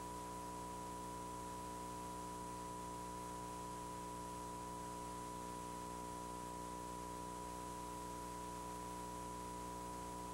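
Dead air on a VHS-recorded TV broadcast: a steady high tone over a low buzzing hum and tape hiss, unchanging throughout.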